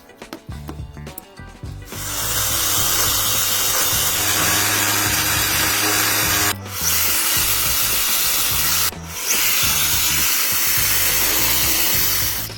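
An abrasive power tool grinding steel, running in three long passes broken by two brief pauses, over background music with a steady bass line.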